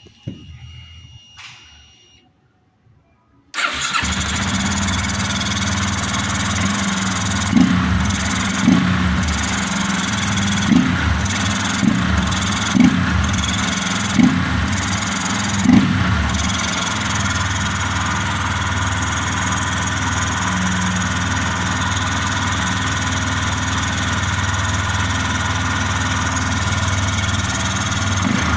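A few clicks, then the Yamaha Fazer 250's single-cylinder engine starts about three and a half seconds in, is blipped with about seven quick throttle revs, and settles to a steady idle. It runs with the rubber intake piece removed from the air filter box, which the owner says gives a sharper note with more growl.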